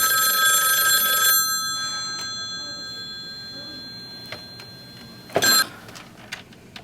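A bright, bell-like ringing tone that starts loud and slowly dies away over several seconds, followed by a second short ring about five seconds in.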